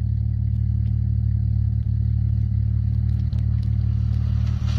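Jeep Wrangler's engine running steadily while driving off-road: a low, even drone with a few faint clicks on top.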